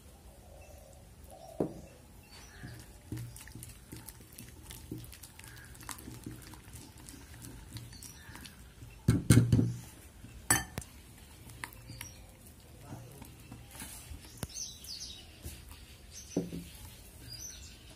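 Green silicone whisk beating thick gram-flour batter in a glass bowl: soft wet stirring with scattered light clicks of the whisk against the glass, and a few louder knocks about nine to ten seconds in.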